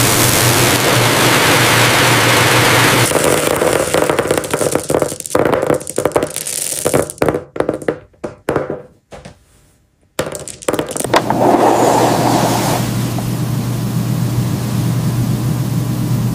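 Small pearls clattering down metal sorting chutes into plastic bins: first a dense continuous rattle, then it thins to scattered separate clicks and stops briefly about nine seconds in. After that, a steady noise starts suddenly and runs on.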